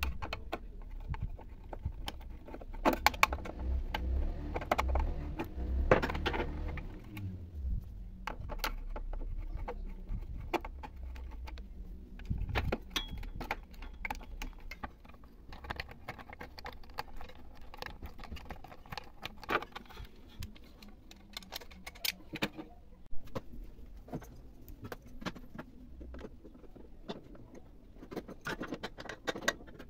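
Metal clinking, clicks and knocks of hands and tools working loose the bolts and switch box of a conventional sewing-machine motor under an industrial straight-stitch table, with a low handling rumble through the first several seconds.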